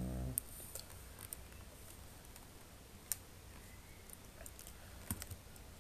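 A few faint, scattered clicks of a computer mouse and keyboard, about half a dozen spread unevenly over the seconds. A short low hum of a voice comes at the very start.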